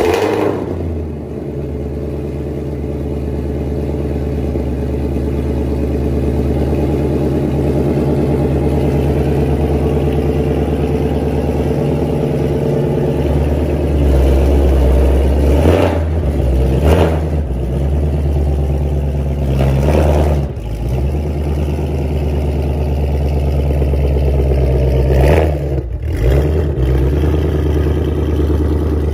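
Tuned 2020 Shelby GT500's supercharged 5.2-litre V8 running through its modified X-pipe exhaust, idling with a deep steady burble as the car backs slowly out, with a few brief louder bursts along the way.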